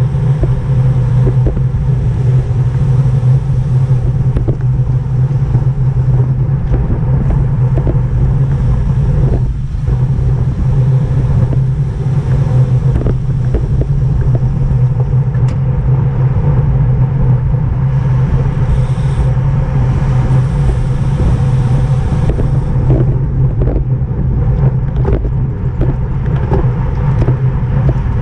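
Steady wind rush and road noise on the microphone of a camera riding on a racing bicycle in a bunch race, with a few faint ticks.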